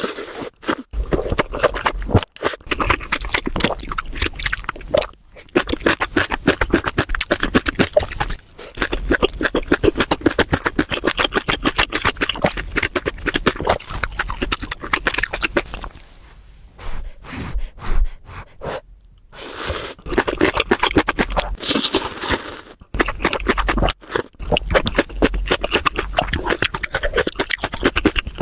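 Close-miked eating of ramen noodles: long runs of wet slurping and chewing, broken by a few short pauses.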